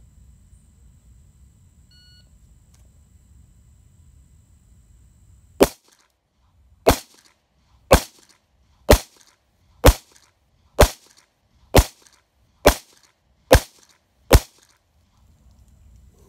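Ten handgun shots fired one after another, about one a second, the first about five and a half seconds in. They come a little before that from a short, faint beep.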